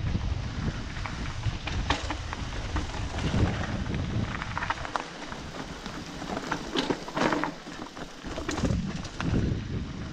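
Mountain bike rolling down a rocky singletrack, its tyres crunching over gravel and roots, with frequent sharp clatters and knocks from the bike over the bumps. Wind rumble on the microphone eases off about halfway through and returns near the end.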